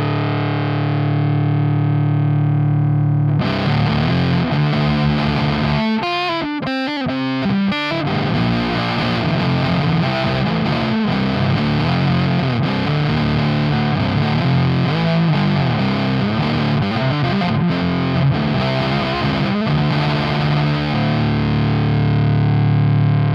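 Electric guitar through a Dolamo D-2 fuzz pedal, loud and heavily fuzzed. A held chord rings for about three seconds, then the sound turns brighter as riffing begins, with a quick stuttering passage a few seconds later, and it ends on a long held chord.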